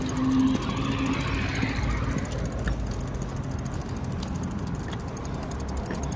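A car passes on the adjacent street, its hiss falling in pitch over the first two seconds. Under it runs a steady low rumble of the bicycle rolling over the concrete sidewalk.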